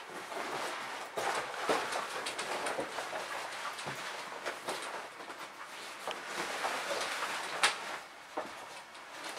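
A leather jacket rustling and creaking as it is picked up off a chair and put on, with scattered small clicks and one sharp click near the end.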